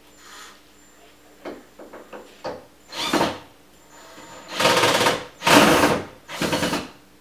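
A power tool run in four short bursts of about half a second each, after a few light knocks and clicks.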